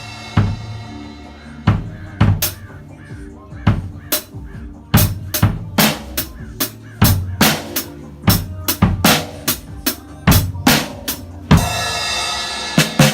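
Background music with a steady drum-kit beat of kick, snare and rimshot hits over a bass line.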